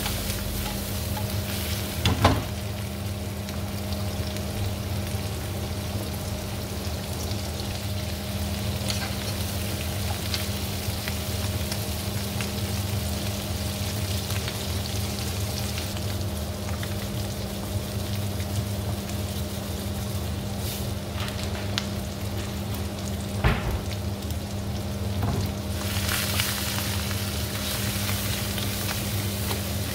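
Sliced red onions and olives sizzling in oil in a frying pan on a gas hob, over a steady low hum. The pan knocks sharply against the hob grate about two seconds in and again near the end, as it is tossed and set back down.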